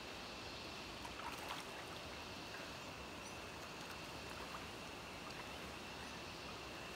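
Steady gentle water noise of a swimming pool, with faint small splashes about a second in and a thin steady high tone running over it.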